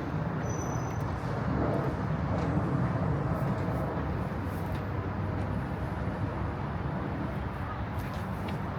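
Steady low rumble of city road traffic, with a few faint ticks and a brief high chirp about half a second in.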